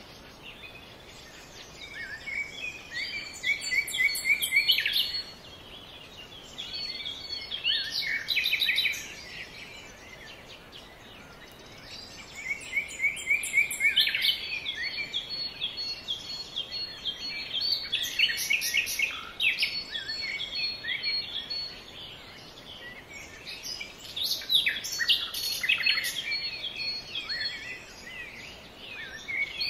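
Songbirds singing: bouts of quick chirps and trills, several voices overlapping, coming and going every few seconds over a faint steady hiss.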